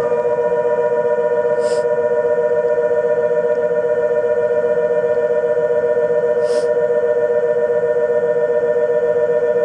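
Electric departure buzzer sounding one steady two-tone buzz throughout, signalling the train is about to leave, with two brief hisses over it.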